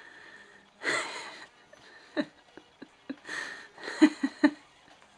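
A person's quiet, breathy laughter: a few soft exhales and short chuckles, with the loudest cluster near the end.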